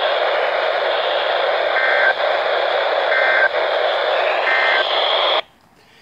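NOAA weather alert radio speaker playing static, with three short two-tone data bursts about a second and a half apart: the EAS end-of-message code. The sound cuts off suddenly about five and a half seconds in as the alert ends.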